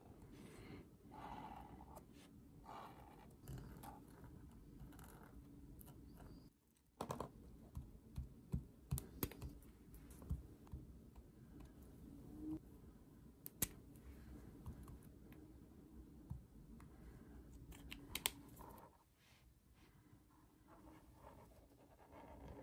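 Marker tips stroking and scratching on a colouring-book page, soft and close. Partway through comes a run of light, sharp clicks and taps.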